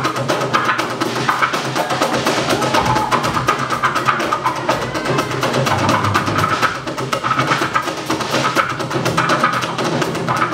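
Live band playing an instrumental passage: a drum kit keeps a busy, fast rhythm under electric bass and electric and acoustic guitars.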